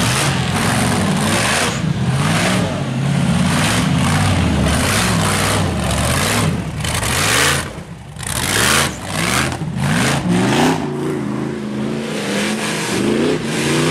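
Off-road buggy engine revving hard in repeated surges, its pitch climbing and falling as the throttle is worked. It drops off briefly about eight seconds in, then revs again.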